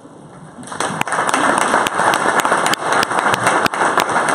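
Audience applauding, breaking out about a second in and carrying on as a dense patter with some sharp single claps standing out.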